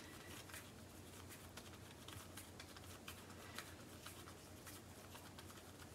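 Near silence with faint, soft handling sounds of hands rolling a ball of raw minced meat filling between the palms.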